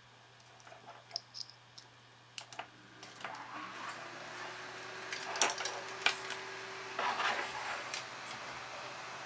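Plastic Molex and fan-cable connectors clicking as they are handled and plugged together, then a Scythe bay cooler's fan spins up about three seconds in: a hum that rises briefly and holds steady under a whoosh of air. A few sharp knocks as the cooler is handled.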